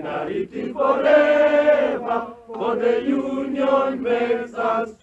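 A group of union members singing a strike song together in unison, in long held phrases with a short break about two seconds in.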